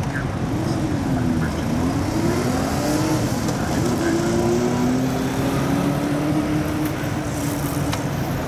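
Road traffic passing: cars and motorcycles going through a junction over a steady hum of traffic. Engine notes fall and rise for the first few seconds as vehicles pull away, then hold steady.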